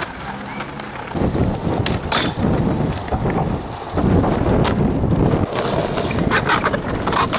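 Skateboard wheels rolling over rough concrete: a steady rumble that starts about a second in, with several sharp clacks of the board and trucks striking the ground.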